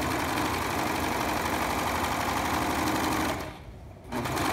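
Brother overlock (serger) machine running at speed, overlocking the edge of a pant front. It stops briefly about three and a half seconds in, then starts again near the end.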